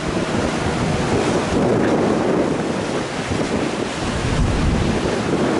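Wind buffeting the microphone over the steady rush of rough, choppy sea and breaking wake water.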